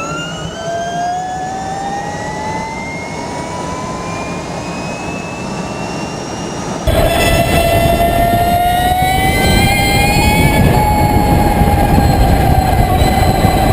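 Electric motorcycle's motor whine climbing slowly in pitch as the bike accelerates. About seven seconds in it cuts to a louder pass: a higher whine that creeps up and then holds, over heavy wind and road roar.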